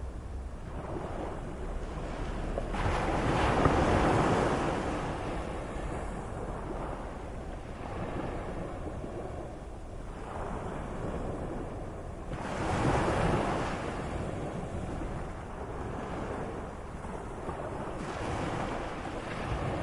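Moderate sea: waves washing and breaking in a steady rush of surf, with two bigger waves surging up, about three seconds in and again about twelve seconds in.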